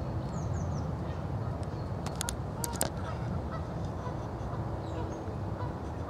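Steady low wind rumble on the microphone, with distant waterfowl calling now and then and three quick, falling high bird chirps about half a second in. Two sharp clicks a little over two seconds in.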